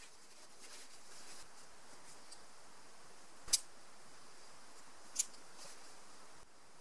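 Hammock fabric rustling faintly as it is handled and stuffed into a stuff sack, with two sharp clicks, the louder one about three and a half seconds in and the other near the five-second mark.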